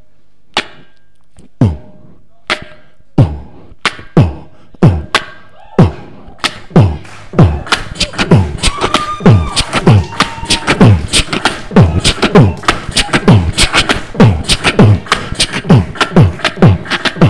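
Beatboxing into a handheld microphone: deep vocal kick-drum thumps, about one a second at first, then from about six seconds in a full fast beat with sharp hi-hat-like clicks between the kicks, merging the bass and tweeter sounds of a sound system.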